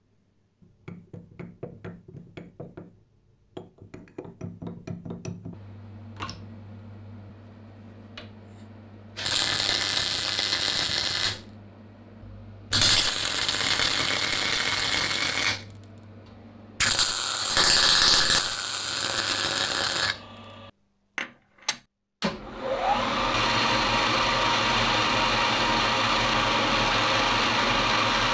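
A run of light clicks and taps, then a MIG welder in three bursts of a few seconds each, welding shut the holes in the book press's small feet. Late on a milling machine's spindle spins up and runs steadily as an end mill machines the feet to the same height.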